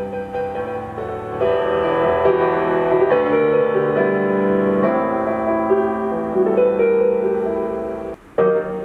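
Gentle piano music playing from a Divoom Ditoo retro pixel speaker, picked up by a camera microphone. The music drops out briefly near the end, then the notes start again.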